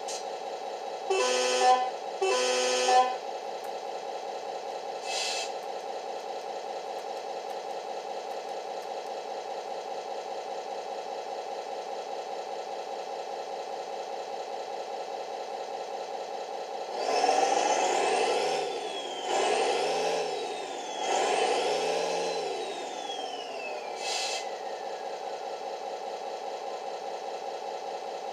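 RC truck sound module (Servonaut) in a 1/14 Scania R620 playing a diesel engine idling steadily, with two short air-horn blasts a couple of seconds in. Past halfway the engine revs up and down three times, then a whistle falls in pitch and a short hiss follows.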